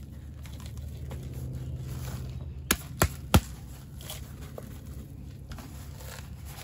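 Granular fish, blood and bone fertiliser shaken from a cardboard box onto compost in a plastic tub, a soft pouring hiss, with three short sharp clicks a little under halfway through.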